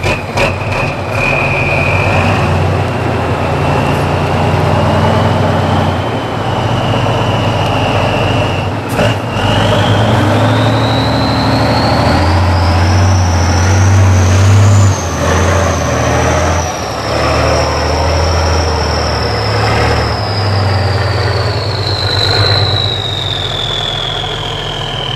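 Tatra truck-trial truck's diesel engine working hard under load as it climbs, with a high whine that rises in pitch about ten seconds in and slowly falls again toward the end. There is a sharp clack about nine seconds in.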